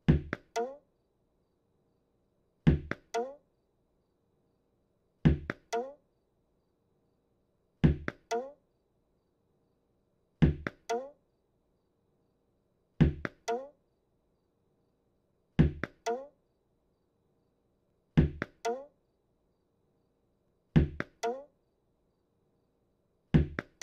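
Tennis ball hitting a wall and bouncing back over and over, as a cartoon sound effect. Each throw is a loud knock followed by two quicker, lighter bounces, repeating about every two and a half seconds, ten times, with silence between.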